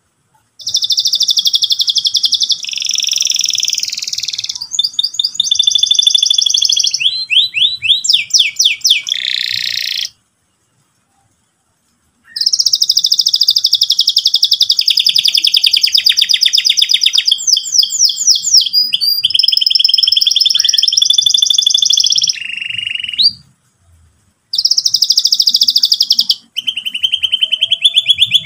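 Domestic canary singing long, high-pitched phrases of very fast rolling trills mixed with quick falling slides, in full, continuous song. The song breaks off twice for a second or two, about a third of the way in and again near the end.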